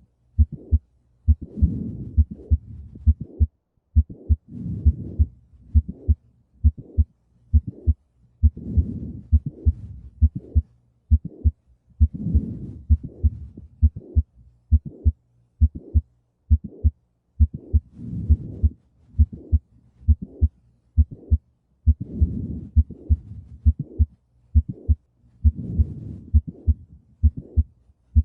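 Heart sounds in an auscultation recording: steady, regular beats, each with a click in mid-to-late systole followed by a systolic murmur, the pattern of mitral valve prolapse.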